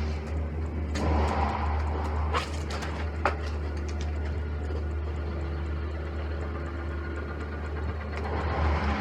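A motor engine running steadily with a constant low hum, and two sharp knocks about two and a half and three and a quarter seconds in.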